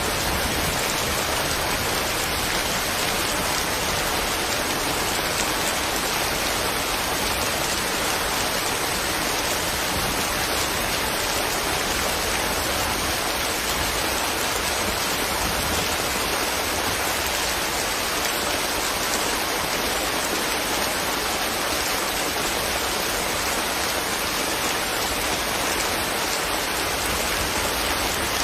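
Steady rain falling, an even patter of raindrops on leaves without a break.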